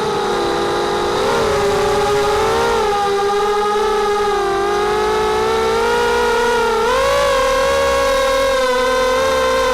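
Brushless motors and 5-inch propellers of a 250-size FPV quadcopter, whining steadily with the pitch rising and falling as the throttle changes, and a quick rise about seven seconds in.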